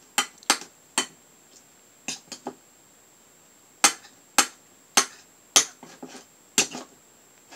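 A utensil clinking against a small ceramic bowl while purple slime of glue and Tide activator is stirred: about a dozen sharp, uneven taps with a short pause in the middle.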